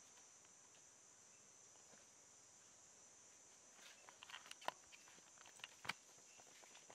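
Steady high drone of insects, like crickets, with a scatter of short scuffs and taps of footsteps on a sandy concrete floor starting about four seconds in.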